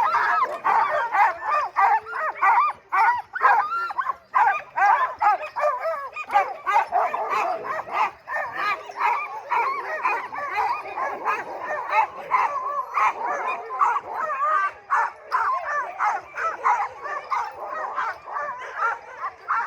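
A team of sled dogs barking, yipping and whining together in a dense, continuous chorus, the excited clamour of dogs in harness.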